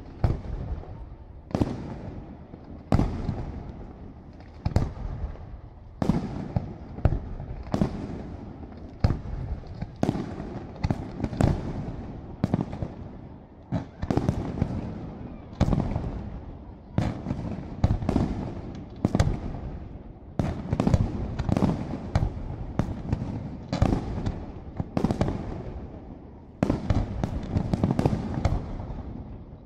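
Fireworks display: aerial shells bursting in a long series of sharp bangs, roughly one a second, each followed by a rumbling echo and crackle. The bangs come thicker and faster in the last few seconds.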